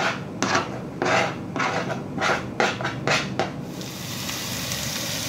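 Chopped onion and garlic scraped off a plastic cutting board into a frying pan, a quick series of scrapes and taps. From about three and a half seconds in, the onion and garlic sizzle steadily in hot oil.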